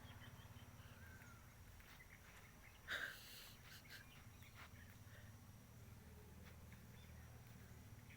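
Near silence over a steady low hum, broken once about three seconds in by a brief scratchy noise, with a few faint ticks.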